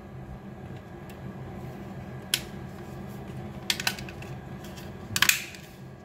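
Plastic casing of a Panasonic air-conditioner remote being snapped back together: a single click about two seconds in, a quick run of clicks near four seconds, and the loudest snaps just after five seconds.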